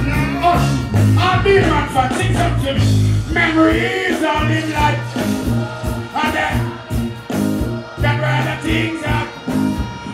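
Live band music through the stage sound system, with a heavy bass line and a man singing into a microphone over it. The bass drops out briefly about four seconds in, then comes back.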